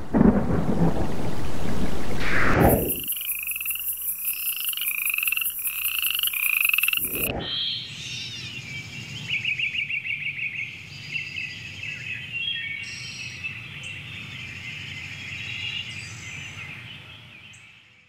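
Frogs calling with insects. A rushing noise fills the first few seconds, then a frog repeats a short rising call a little under twice a second over a steady high insect drone. After a brief swell about seven seconds in, fainter trilling calls follow.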